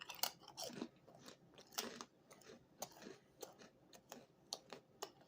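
Faint, irregular crunching clicks, about two a second.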